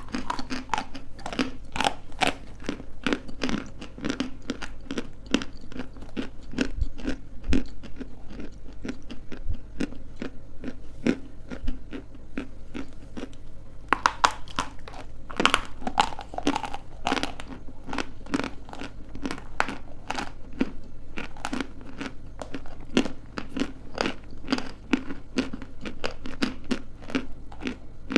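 Chunks of dry edible clay being bitten and chewed close to the microphone: a dense, continuous run of crisp crunches.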